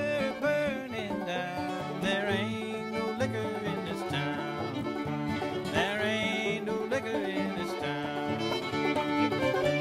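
Bluegrass-style string-band music led by banjo, with fiddle.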